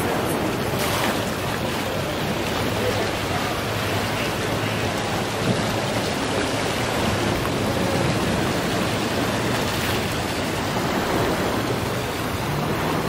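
Steady rushing wash of ocean surf against the shore, an even water noise without breaks.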